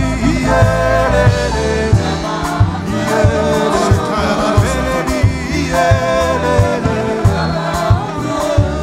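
Gospel worship song: several choir singers on microphones singing together over a band with bass and a steady drum beat.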